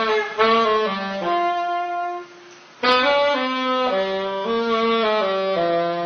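Solo saxophone playing a slow melody of held notes, with a brief pause a little past two seconds in.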